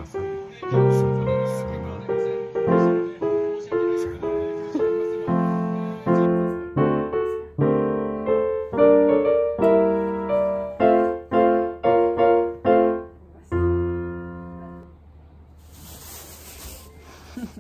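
Background piano music: a melody of struck notes that stops with a held chord about three-quarters of the way through, followed by a faint hiss.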